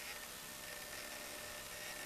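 Faint high whine of a radio-controlled Unimog model truck's electric motor and gearbox, crawling slowly over rock, under a steady hiss. The whine comes and goes, clearest in the second half.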